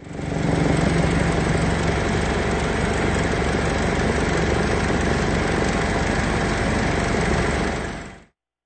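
Helicopter engine and rotor noise heard from aboard the aircraft: a loud, steady drone that cuts off suddenly near the end.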